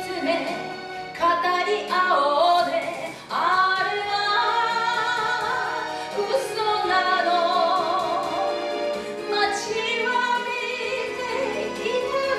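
Enka song with a woman's voice over an orchestral backing track, heard through a hall's sound system, the melody held with vibrato.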